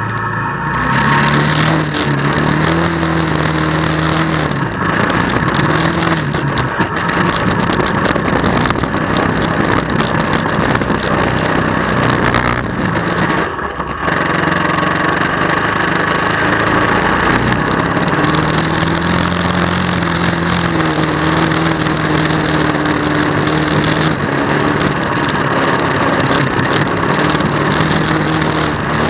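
1999 Honda Fourtrax 300 ATV's single-cylinder four-stroke engine running under load while being ridden over mud and dirt trail, its pitch rising and falling with the throttle. A loud rushing noise of wind and riding rattle on the microphone sits over it, stepping up about a second in.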